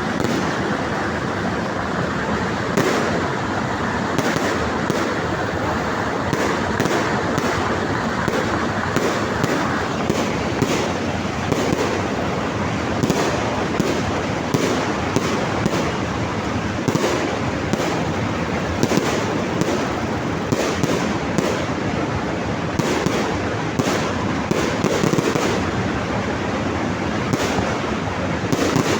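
Fireworks going off without pause: a dense, constant crackle with frequent sharp bangs, one or two a second, over it.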